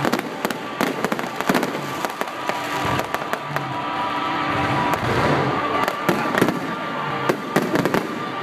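Fireworks display going off: many sharp bangs in quick succession over continuous crackling.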